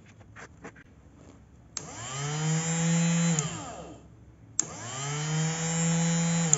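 RS550 high-speed DC motor switched on twice. Each time a click is followed by a quick whine up to a steady high speed, and the motor winds down when the power is cut. The first run lasts about a second and a half; the second is cut off with a click near the end.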